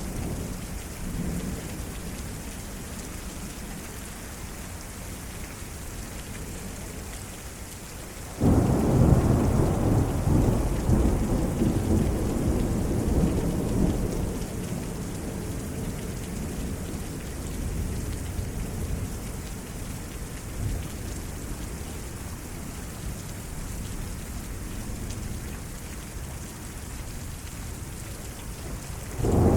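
Thunderstorm with steady heavy rain. About eight seconds in, a sudden loud thunderclap breaks into a rumble that holds for several seconds and slowly fades, and another thunderclap begins right at the end.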